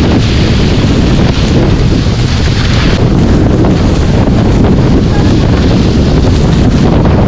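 Wind buffeting the boat-mounted camera's microphone, with a steady rush and hiss of water spraying off the hull of a catamaran sailing fast.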